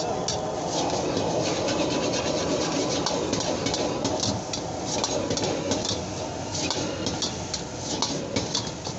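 A metal wok ladle scraping and clinking rapidly against a wok as fried rice is stir-fried and tossed, several strokes a second. Under it, a steady rush of noise from the high gas burner and the frying rice.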